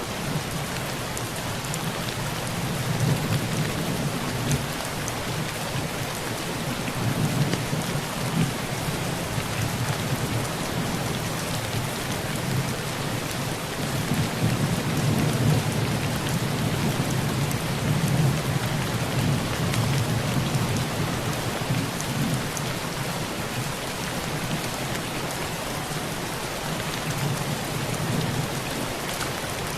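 Heavy rain falling on a tin roof, a steady hiss with scattered sharp drop hits, under low rolling thunder that swells a couple of seconds in and again around the middle.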